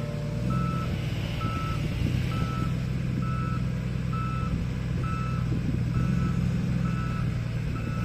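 Motor grader backing up: its reversing alarm beeps about once a second over the steady low drone of its diesel engine.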